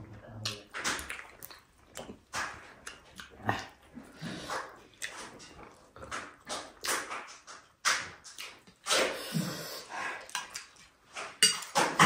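Close-miked eating sounds: chewing and slurping food in a string of short, irregular mouth noises.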